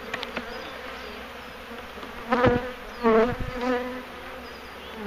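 Honeybees buzzing in a dense, steady hum from a heavily populated colony stirred up as its hive is opened. There is louder, wavering buzzing twice, about two and three seconds in, as bees pass close.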